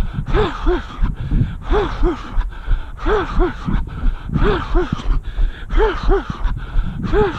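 A runner's hard, rhythmic breathing: two quick voiced puffs of breath repeating about every second and a third, over the regular thud of footfalls on the road.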